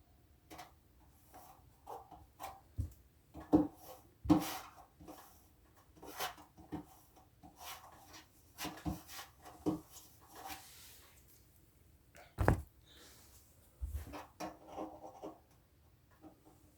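Scattered handling noises as something is worked by hand: light clicks, taps and rubbing, with a sharper knock about twelve seconds in.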